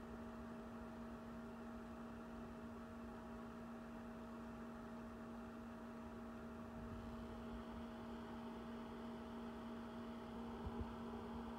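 Steady electrical hum with two faint, even tones, from the switching power supply and its cooling fan that drive the lit LED strips. A brief light knock comes near the end.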